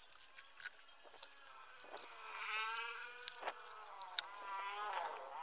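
An animal bleating twice, each a long wavering call of about a second, the first about two seconds in and the second near the end. Under it, light clicks and taps of the plastic circular-saw housing being handled and fitted together.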